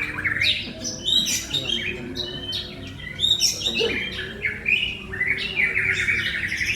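White-rumped shama (murai batu) singing a continuous, varied song of quick whistled and chattering phrases, with a fast trill near the end.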